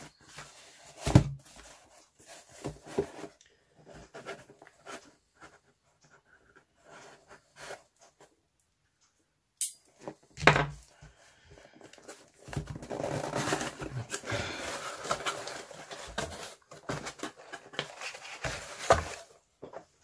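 Cardboard mailer box handled and opened on a desk: scattered taps and scrapes for the first several seconds, a sharp click and a thump about ten seconds in, then several seconds of tearing and rustling of cardboard flaps and crumpled kraft packing paper.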